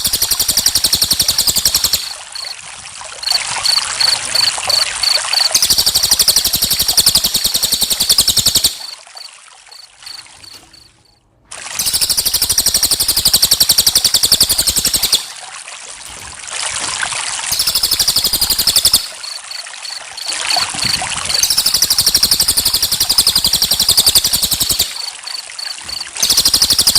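Trickling water with crickets chirping in fast, high, pulsing trills. The sound drops almost to nothing around ten seconds in, then starts again.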